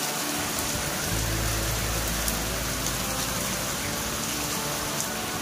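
Heavy rain pouring down steadily, with a few sharp ticks. A low rumble comes in about a second in and fades later.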